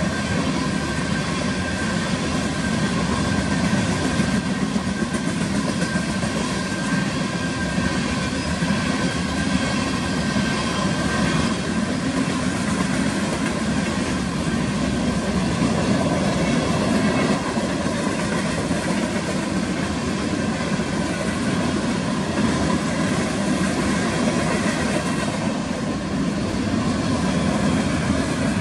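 Freight train cars rolling past: a steady, unbroken noise of steel wheels running on the rails.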